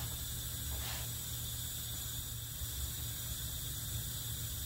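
Steady low hum with a hiss over it, and one faint short rustle about a second in.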